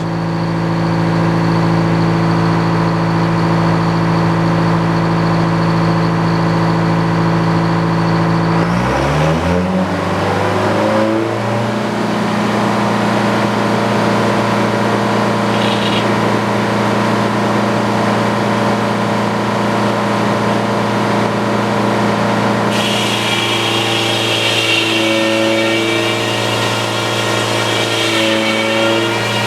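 Sawmill engine running steadily, revved up about a third of the way in and then held at a higher speed. About two-thirds in, a higher hiss joins it as the saw blade starts cutting into a white pine log.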